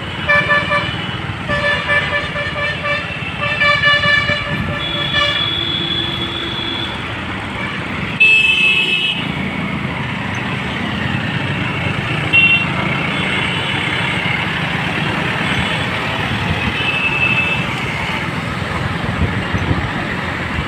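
Vehicle horns honking in traffic: a quick run of short beeps over the first five seconds, then a few longer horn notes, over the steady low rumble of engines and road noise from a busy road.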